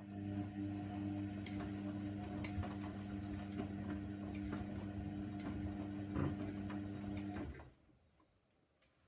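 Hoover Nextra washing machine's drum motor tumbling the load during the heating stage of the wash: a steady hum with faint irregular ticks from the load in the drum. The motor stops about three-quarters of the way through.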